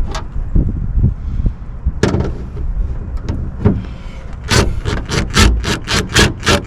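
Hand ratchet working a bolt loose: scattered clicks and knocks, then from about two-thirds of the way in a steady run of short rasping ratchet strokes, about three or four a second.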